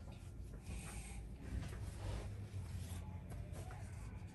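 Faint rustling and a few light taps over a low steady hum.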